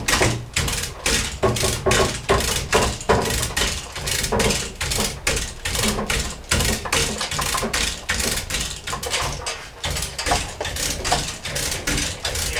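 Ceiling-mounted hoist lifting a Mazda Miata NA engine: a continuous run of irregular mechanical clicks, several a second, over a low rumble.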